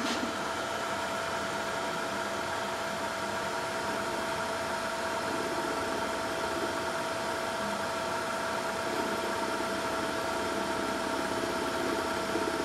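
Electric motor of a small drilling machine running steadily with its spindle turning, a steady whine of a few fixed pitches.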